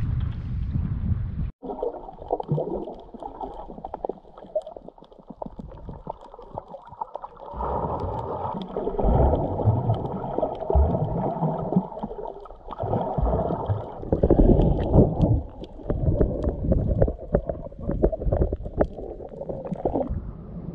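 Wind buffets the microphone for a moment, then the sound cuts to muffled underwater audio from a camera held beneath the sea surface: water gurgling and sloshing in uneven swells, with scattered faint clicks.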